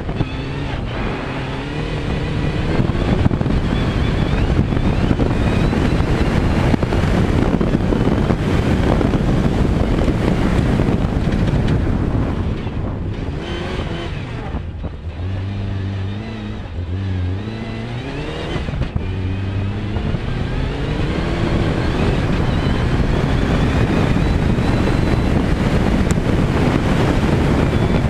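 Rally car engine pulling hard on a dirt stage, its note repeatedly rising and dropping back as it shifts up through the gears, over steady rumble of tyres on loose ground and wind on the microphone. There is a quieter stretch about midway, where the rising engine notes stand out more clearly.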